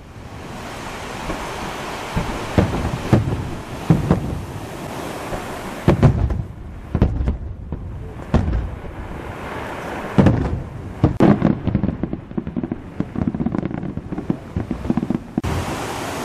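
Aerial fireworks bursting: repeated deep booms, some in quick clusters, with crackling over a constant rumble.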